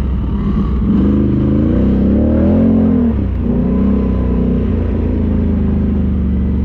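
ATV engine revving: its pitch climbs from about a second in, drops off near three seconds, then runs steadier with smaller rises and falls.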